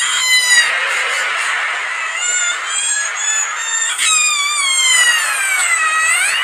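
Cartoon cat girl's crying voice, pitched up and distorted by audio effects: high, wavering wails that honk like a goose. A new cry starts about four seconds in, slides down in pitch and then jumps sharply upward near the end.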